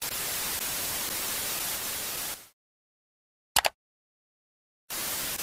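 TV-static glitch sound effect: a hiss of white noise for about two and a half seconds that cuts off sharply. It is followed by silence with one short burst of static about three and a half seconds in, and the hiss returns near the end.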